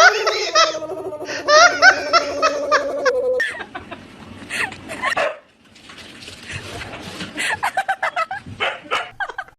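People laughing, mixed with a dog's drawn-out vocalising over the first three seconds or so, then further bursts of laughter.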